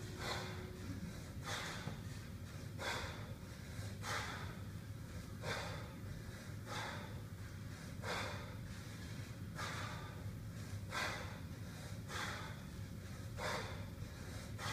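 A man's hard, rhythmic breathing as he does 32 kg kettlebell cleans, one sharp breath with each rep, about every second and a third, eleven or so in all, over a steady low hum.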